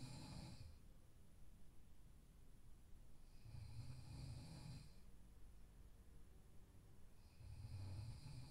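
A sleeping person snoring faintly, a low rumbling snore about every four seconds: one fading out about half a second in, one in the middle, and one beginning near the end.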